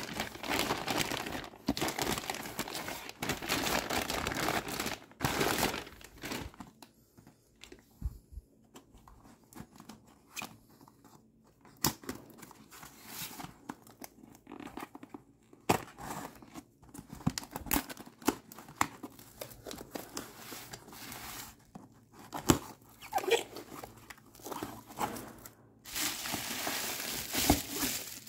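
Plastic courier mailer crinkling and tearing as a box is pulled out of it, then scattered taps, clicks and short scrapes as the cardboard box is handled and opened, with dense crinkling again near the end.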